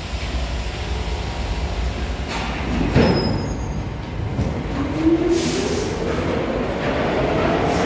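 R62 subway train pulling out of the station: a single clunk about three seconds in, then its motor whine rises steadily in pitch as the train picks up speed over the rumble of the wheels.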